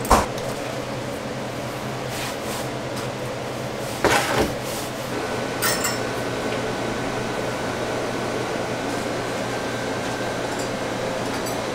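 Steady whir and low hum of running kitchen fans, with a few metal clinks from steel meat hooks being handled: a sharp one right at the start, and others about four and six seconds in.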